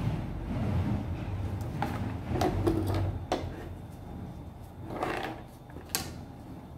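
Wooden ruler being laid down, lifted and repositioned on cotton fabric over a wooden table: several light knocks and clicks with fabric rustling between them.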